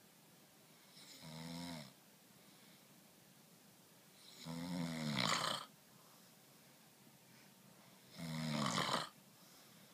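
Snoring: three drawn-out, rasping snores about three to four seconds apart, the second and third louder than the first.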